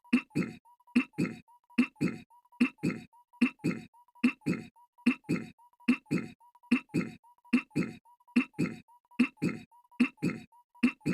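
Goofy's cartoon voice clearing his throat, a short two-part 'ahem' looped over and over, about once every 0.8 seconds.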